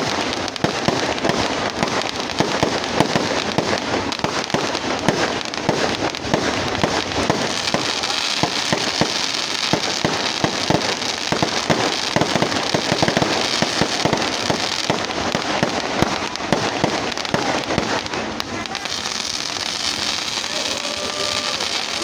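Continuous rapid crackling and popping of many fireworks and firecrackers going off at once, with dense overlapping bangs. Near the end, faint rising and falling whistles join in.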